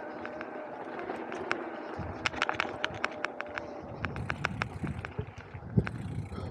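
Mountain bike rolling over a dry dirt trail: tyres crunching on loose ground, with a run of sharp ticks and rattles from the bike about four to six times a second. A low rumble of wind on the microphone comes in about two seconds in.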